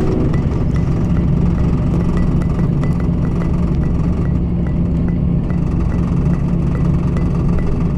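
Steady road and engine rumble heard from inside a moving vehicle cruising on a highway, with a faint regular ticking a little over two times a second.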